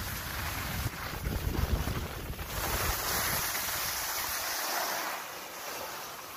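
Wind buffeting the microphone with the hiss of skis sliding over firm snow; low rumbling gusts in the first couple of seconds give way to a steadier scraping hiss.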